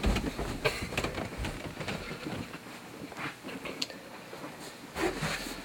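Scattered clicks, knocks and rustles of someone moving about in a dark room and handling the camera, with a louder knock or rustle near the end.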